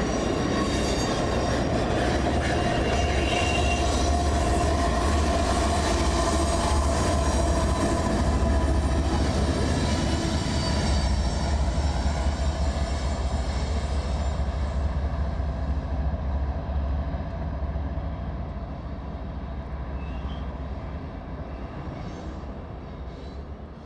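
Train passing close by: steel wheels rolling on the rails with a heavy low rumble and thin, high wheel squeal. The squeal dies away about halfway through, and the whole sound fades over the last few seconds as the train moves off.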